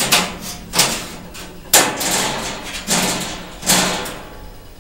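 Stainless steel shelves of a round tripper linen cart being folded down into a front wall: about five metal clanks and rattles, the sharpest a little under two seconds in.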